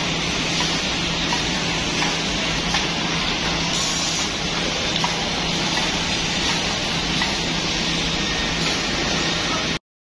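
Triangular corner-block drilling machine running: a steady hiss over a low, even hum, which cuts off abruptly near the end.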